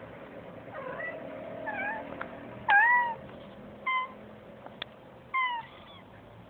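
Cat meowing: five short meows that bend up and down in pitch, the loudest about three seconds in, with a couple of faint sharp clicks between them.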